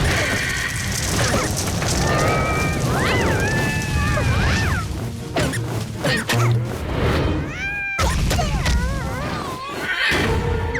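Cartoon soundtrack: background music with comic sound effects and short bursts of squeaky, gliding, wordless character noises.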